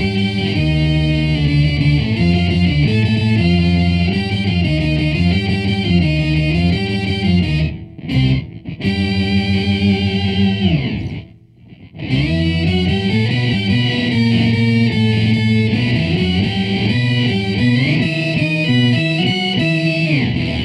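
Gibson Les Paul electric guitar on its neck pickup, played through the Sushi Box "Organic" octave fuzz pedal with both fuzz and octave on, adding notes two octaves up and two octaves down, into a Bedrock 621 amp's clean channel. The guitar plays a riff of notes, breaking off briefly about eight seconds in and again just before halfway.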